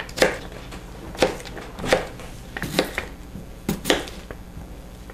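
Chef's knife cutting a raw potato into cubes on a plastic cutting mat: a run of irregular knocks as the blade goes through and strikes the board, some in quick pairs.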